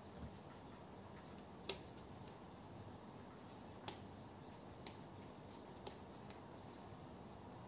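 Sharp plastic clicks of a pen-spinning mod knocking against fingers as it is spun and caught, four distinct clicks spread over several seconds, the loudest about a second and a half in, over a faint steady hiss.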